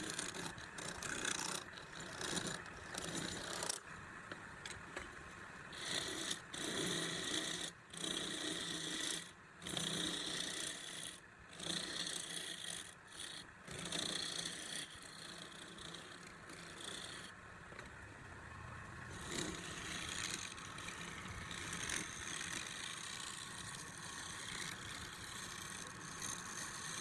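Woodturning on a lathe: a cutting tool scraping against spinning wood, in passes broken by short pauses during the first half, then running more evenly.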